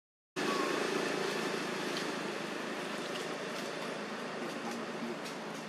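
A brief dropout to silence at the very start, then steady outdoor background noise with a faint low hum and a few faint ticks.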